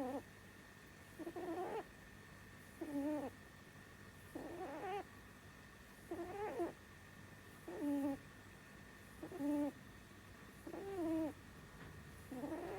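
Pet rabbit snoring in its sleep: short, wavering, pitched snores that come regularly, one about every second and a half.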